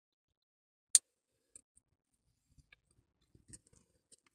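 Quiet eating sounds: one sharp click about a second in, then a few faint clicks and soft mouth noises near the end, from a metal spoon and lips while eating ice cream.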